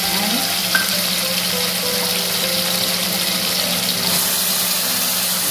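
Blended onion and garlic paste sizzling steadily in hot oil and ghee, just added to the pan.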